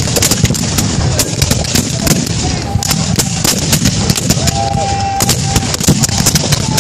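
Massed black-powder muskets firing in a ragged, continuous fusillade, several sharp reports a second overlapping, with men shouting through the firing.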